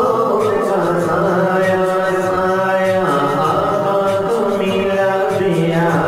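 Urdu devotional chant (naat): a voice holding long notes that slide up and down over a steady held drone.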